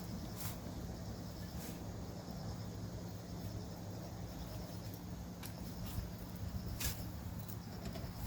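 Insects chirping faintly over a steady low hum, with a few sharp clicks scattered through.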